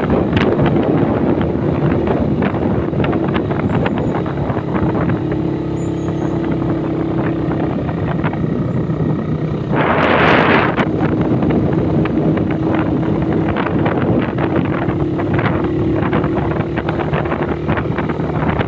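Motorcycle engine running steadily on the road, with wind buffeting the microphone. A short, loud hiss cuts in about halfway through.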